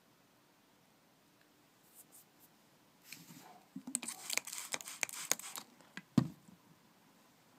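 Close handling noise around a plastic beetle-rearing container: a quick run of scratching, rustling and clicks in the middle, then a single dull knock a little after six seconds.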